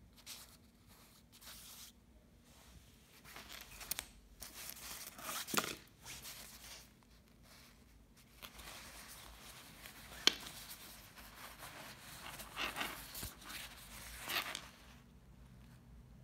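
Glossy nylon shell of a quilted down jacket rustling and crinkling in irregular bursts as a hand grips and folds it open, with a couple of sharper clicks.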